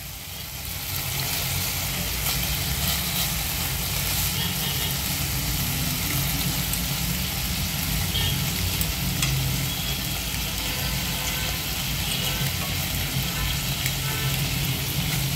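Marinated boneless chicken pieces sizzling steadily in butter and oil in a non-stick frying pan over a medium flame, with a few light scrapes and taps of a spatula as the pieces are turned.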